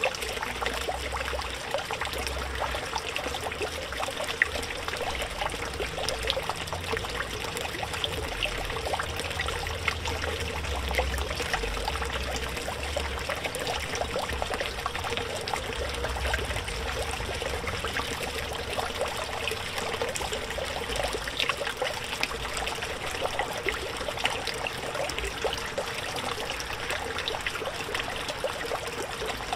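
Small fountain pump in a backyard pond spraying water that splashes and trickles steadily back onto the surface, with a constant patter of fine droplets.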